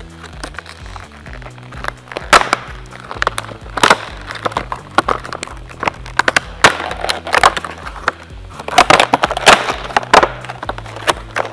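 Stiff plastic packaging crackling and snapping as it is pulled open by hand, in a series of sharp cracks, over background music with a steady bass line.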